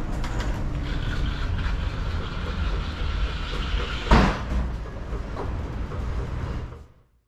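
Steady low rumbling background noise with a few faint knocks and one louder knock about four seconds in; the sound fades out near the end.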